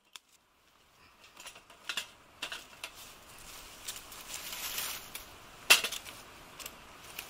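Dry sticks and twigs being handled and laid on a metal fire stand: scattered wooden clicks and knocks, one sharp knock about three-quarters of the way through, with light rustling between.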